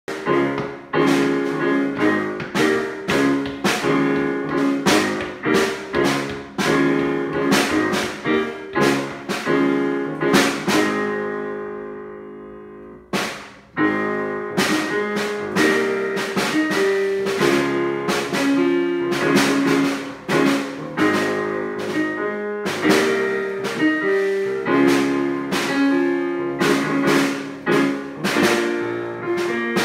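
A child's drum kit and an electric keyboard played together: a song on the keyboard under drum and cymbal hits. About ten seconds in the drums stop and the keyboard fades out. Both start again a couple of seconds later.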